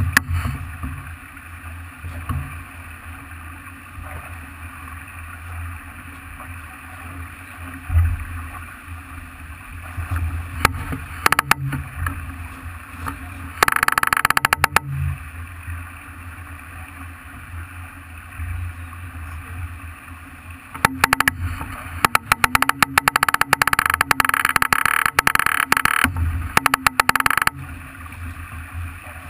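Farr 40 racing sailboat under way: a steady low rush of wind and water with occasional thumps. Bursts of rapid clicking come in twice, a short one about halfway through and a longer one of several seconds later on.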